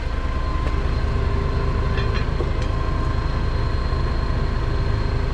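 Heavy machine's engine running steadily, a deep low rumble with faint steady whines above it.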